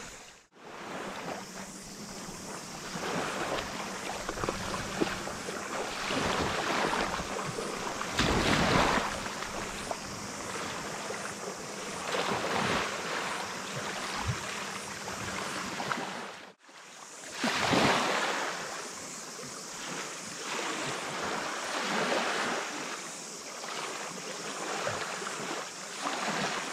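Sea water washing and splashing in uneven swells, with wind rushing over the microphone. The sound drops out sharply for a moment near the start and again about two-thirds of the way through.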